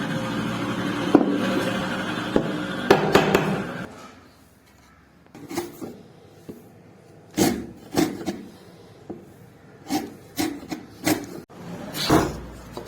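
Hand woodworking on wood, likely with a chisel. There are about four seconds of continuous scraping and rubbing, then a run of separate sharp knocks and taps.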